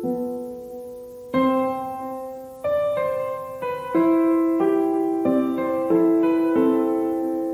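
Background piano music: single notes and chords struck roughly once a second, each ringing and fading before the next.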